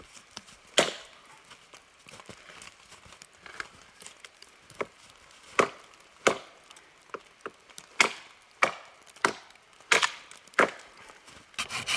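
Dead wood cracking and snapping: about a dozen sharp cracks at uneven intervals as twigs and side shoots are broken off a long dead, lichen-covered branch.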